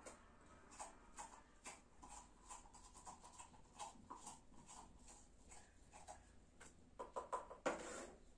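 Faint, repeated scraping strokes of a zucchini corer working inside a zucchini to hollow it out, about two a second, with a louder, quicker run of strokes near the end.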